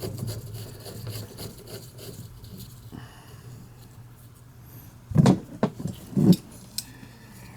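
Handling noise: scraping and rubbing against wood with scattered faint clicks over a steady low hum, and two short, louder sounds about five and six seconds in.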